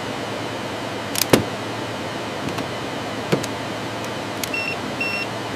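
A steady hiss, broken by a handful of sharp mechanical clicks and knocks, the strongest about a second in. Near the end come two short electronic beeps, half a second apart.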